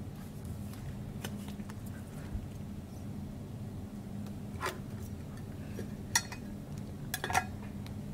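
A few light clicks and taps of trading cards and their packaging being handled on a table, over a steady low hum.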